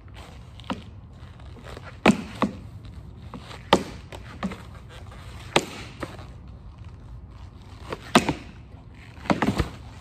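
Jib board knocking against a low practice rail box as it is popped onto it and landed: sharp clacks and thuds a second or two apart, with a quick run of knocks near the end.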